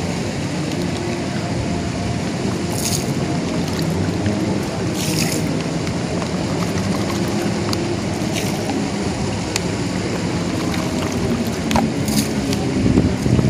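Steady low rumble of distant engine noise, with a few brief high hissing swishes over it.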